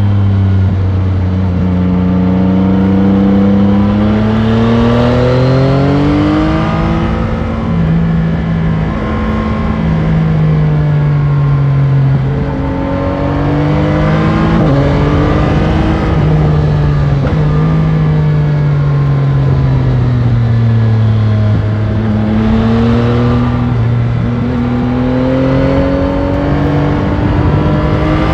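Yamaha Tracer 9 GT's three-cylinder CP3 engine through its stock exhaust, heard onboard while riding: the pitch climbs under acceleration for the first six seconds or so, drops with a gear change, climbs again, then falls away for several seconds as the bike slows, and rises once more near the end.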